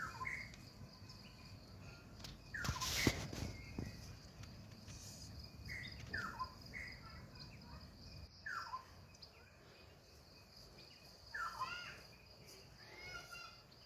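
Outdoor insect and bird sounds: a steady high-pitched insect drone under a bird's repeated short falling calls every second or two. A brief loud noise comes about three seconds in.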